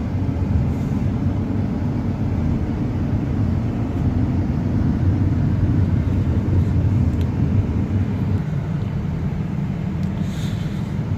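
Hyundai Santa Fe 2.2 CRDi diesel running normally on the move: a steady engine and road rumble.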